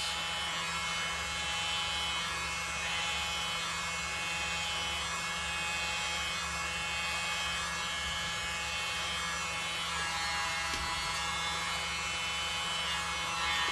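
Leaf blower with a narrow nozzle attachment running steadily, its motor whirring and air rushing out of the nozzle, blowing wet pour paint across a tile.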